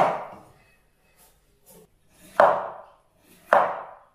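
Chinese cleaver chopping through pumpkin onto a wooden cutting board: three sharp chops, each dying away quickly, the last two about a second apart.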